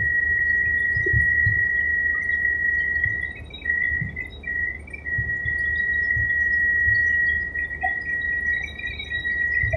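Helicopter cabin sound: a loud, steady high-pitched whine over a low rumble, the whine dipping briefly a few times.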